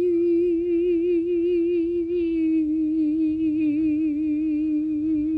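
A woman singing unaccompanied, holding one long note with a wavering vibrato that steps down slightly in pitch about two seconds in.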